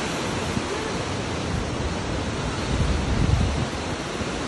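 Steady rushing roar of a mountain torrent cascading through a rocky gorge, with wind buffeting the microphone in low rumbles, strongest about three seconds in.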